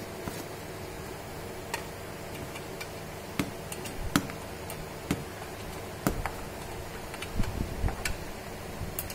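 Irregular light clicks and knocks from hand-fitting a petrol chainsaw's side cover and bar nuts, spaced a second or so apart with a few duller knocks in the second half.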